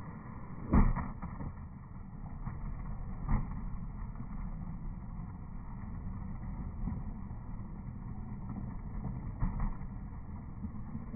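Skateboard wheels rolling over concrete with a steady low rumble, broken by sharp clacks of the board: a loud one about a second in, another around three seconds in, and a couple of smaller ones near the end.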